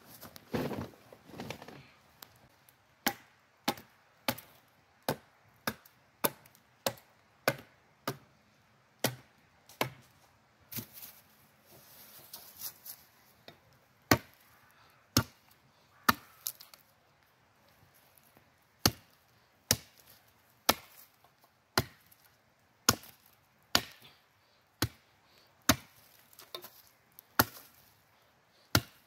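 Wood being chopped by hand with a heavy blade: sharp single strikes on wood, roughly one a second, with a short pause midway. A bag rustles at the very start.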